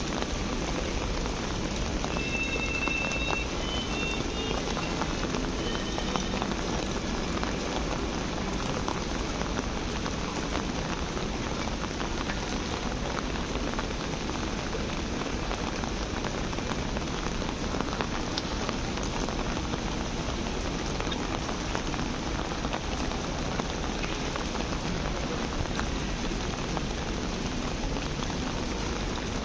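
Steady rain falling, a dense even patter of drops hitting the ground.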